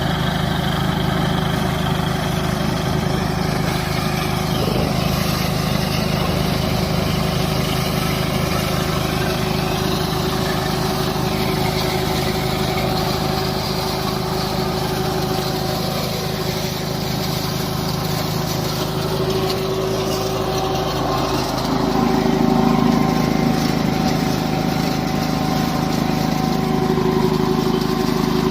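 Mini combine harvester running steadily, its engine and threshing machinery at work harvesting soybeans. Near the end the engine note shifts and grows a little louder.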